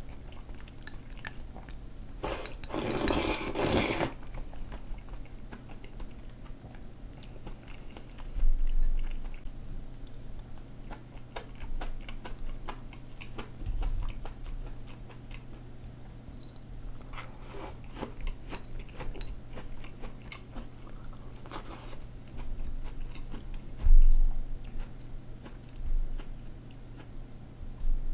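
Close-miked eating of perilla-seed kalguksu noodles: a loud slurp of the thick noodles and broth a couple of seconds in and shorter slurps later, with wet chewing and small mouth clicks between them. Two dull knocks come, one about a third of the way in and one near the end.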